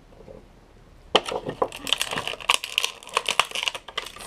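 Small hard plastic toy figures being handled and set down on a plastic playset: quiet at first, then a sharp click about a second in and a busy run of light clicks and rattles.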